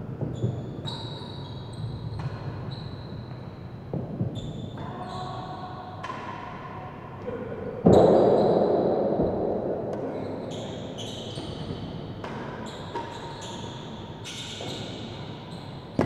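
Real tennis rally in an enclosed court: the solid ball is struck by rackets and bounces off the floor and walls, with sharp knocks echoing around the hall. One much louder impact about eight seconds in rings on for a couple of seconds.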